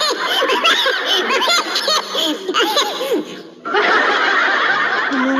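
A man laughing hard, in quick high-pitched bursts, through a live-stream microphone; the laughter stops for a moment about three and a half seconds in, then a denser, busier stretch of sound follows.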